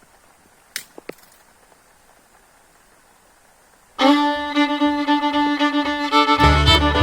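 Two sharp clicks about a second in, then a bluegrass-style fiddle tune starts suddenly about four seconds in, with a bass line joining near the end.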